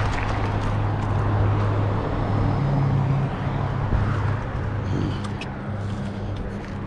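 Electric scooter riding along: wind rushing over the microphone with a steady low hum.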